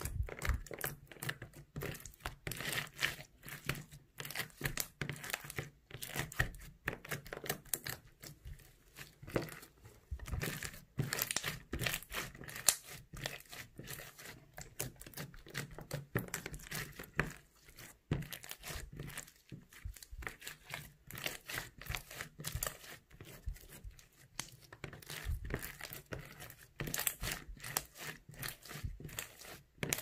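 Clear pink slime full of foam beads being poked, pressed and squeezed by hand, giving a dense, uneven run of sticky pops, clicks and crackles.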